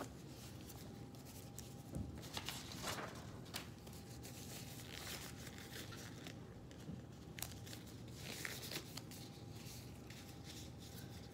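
Faint rustling and scattered light clicks of a dressing kit's mask and packaging being handled and clean exam gloves being pulled on.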